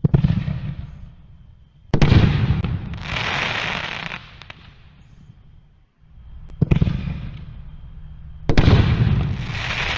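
Canister-shell fireworks firing: a bang near the start and a louder, longer burst with a hissing tail about two seconds later, then the same pair again from about seven seconds in.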